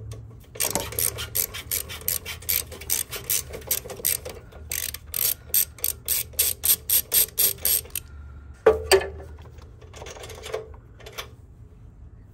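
Hand ratchet with a socket extension clicking in quick runs as it backs out the half-inch bolts holding a motorcycle oil tank. The clicking stops about two-thirds of the way through, and a few scattered clicks follow.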